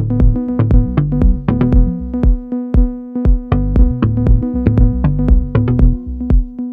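Electronic music soundtrack: a drum-machine beat with bass and a synthesizer holding a steady note.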